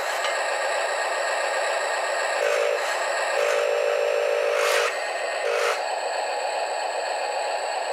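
Electric drive motors and gearbox of a Huina RC wheel loader whining in three short bursts as it creeps forward onto a trailer deck, with a couple of brief plastic clatters.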